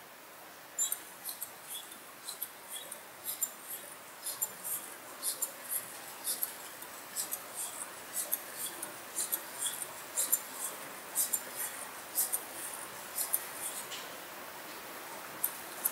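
Small three-servo Arduino walking robot stepping: short, irregular clicks and ticks, several a second, from its hobby servos and wire legs moving on the tile floor. The clicking pauses for about a second near the end.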